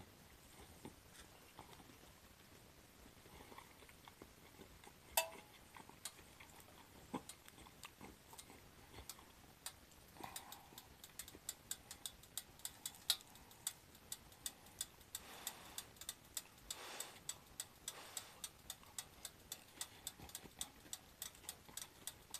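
Faint close-up chewing of a pan-fried shrimp shumai with a crisp browned skin. After a click about ten seconds in, a run of small crunching clicks follows, about two to three a second.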